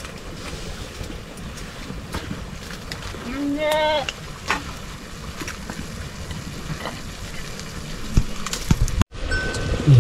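Open wood fire crackling and hissing in a hearth, with scattered sharp clicks and knocks of metal pots. A short rising voice cuts in about three and a half seconds in.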